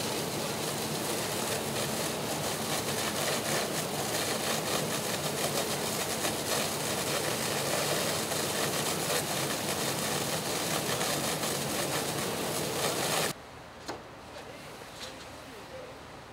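Fire engine running steadily at a working house fire, with the hiss of a hose stream spraying water. The sound cuts off abruptly about thirteen seconds in, leaving a much quieter hiss with a couple of faint knocks.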